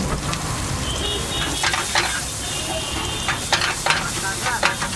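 Egg bhurji (eggs and onions) frying in a black wok over a gas burner, a steady sizzle, with a metal spatula scraping and clacking against the pan again and again from about a second and a half in.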